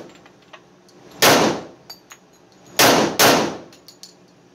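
Three pistol shots from an FXH-45 Moxie .45 ACP 1911 echo in an indoor range: one about a second in, then two close together about a second and a half later. Spent brass casings clink between the shots.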